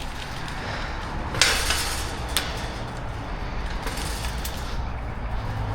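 A few scrapes and sharp knocks over a low steady rumble, the loudest a scrape about one and a half seconds in, followed by a sharp knock about a second later.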